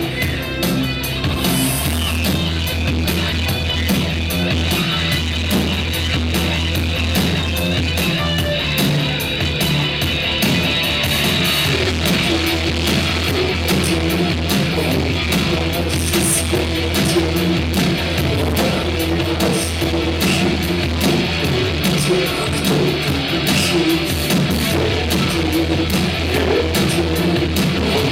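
Rock band playing an instrumental passage: electric guitar over heavy bass and a steady drum beat.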